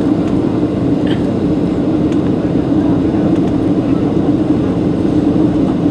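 Steady engine and airflow noise inside an airliner cabin, an even hum strongest in the low-middle range, with faint voices beneath.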